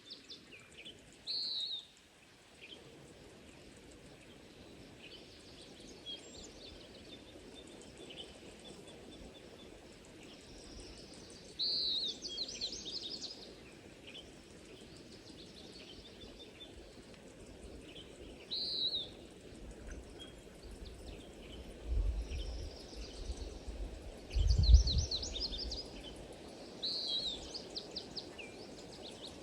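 Outdoor ambience with a songbird repeating a short falling note followed by a quick trill, four times, several seconds apart, over a steady low background hum. Two brief low rumbles come near the end, the second the loudest sound.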